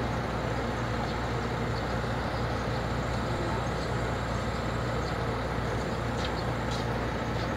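Heavy diesel engine running steadily with an even low hum, from a truck-based mine crew bus. A few faint clicks near the end.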